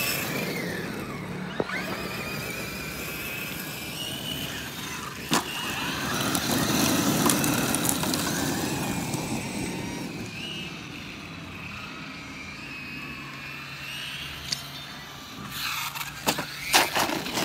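Thunder Tiger eMTA electric RC monster truck driving over gravel: its electric motor whines, rising and falling in pitch as the throttle changes, with tyres crunching on loose gravel. There is a sharp knock about five seconds in and a quick run of louder knocks near the end.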